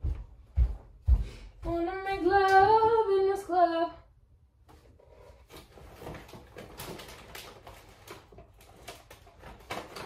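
A few dull knocks, then a woman singing a short wordless phrase for about two seconds. After that come small items clicking and rattling as things are moved about on a kitchen shelf.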